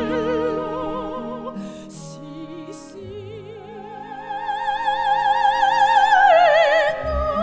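Background music: an operatic voice holding long notes with strong vibrato. It breaks off briefly about two seconds in, then swells to its loudest on a high note and steps down near the end.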